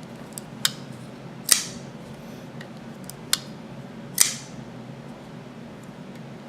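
Kershaw SpeedSafe assisted-opening folding knife being flicked open by its flipper tab: two sharp metallic snaps of the blade springing out and locking, about a second and a half in and again near the middle, with lighter clicks between.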